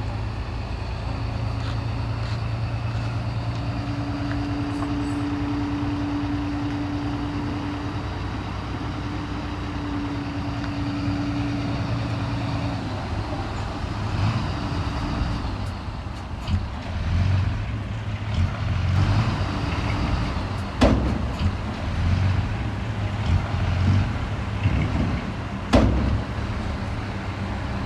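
Heavy diesel engine of an earthmoving machine running steadily with a held tone, then turning rougher and uneven, with several sharp metallic knocks, two of them loud, in the later part.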